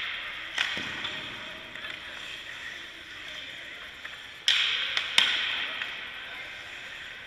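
Hockey pucks and sticks striking: three sharp knocks, one about half a second in and two close together past the middle, each ringing on in the rink's echo, with skate blades scraping the ice between them.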